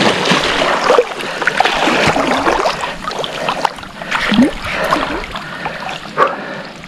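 Wels catfish thrashing at the surface in shallow water: heavy splashing for the first few seconds, then the splashing dies down as the fish settles in the shallows.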